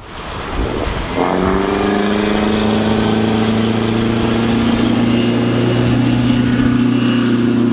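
Bayliner 192 Cuddy's MerCruiser 3.0-litre, 135 hp four-cylinder sterndrive engine running hard as the boat planes at speed. The engine note comes up about a second in, rises slightly and then holds steady over a continuous hiss.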